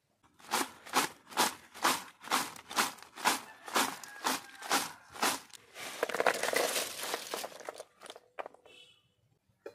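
Crisp banana chips being tossed by hand in a steel bowl lined with banana leaf: a rhythmic crunchy rustle about twice a second. About six seconds in it changes to a denser rattle as the chips are tipped out onto a banana leaf, with a few light clicks near the end.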